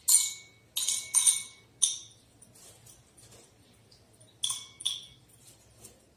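Silica gel beads dropped into a glass beaker of water, clinking against the glass with a short ring: four clinks in the first two seconds, then two more about halfway through.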